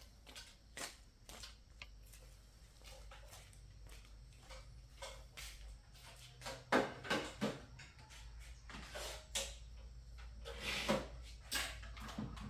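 Irregular clicks, taps and small knocks of hands and tools handling a TV receiver box, louder and closer together in the second half, over a faint steady low hum.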